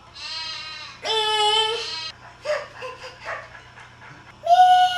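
A toddler imitating animal sounds in a high voice: two held calls, then a few short yips, then a long call that falls in pitch near the end.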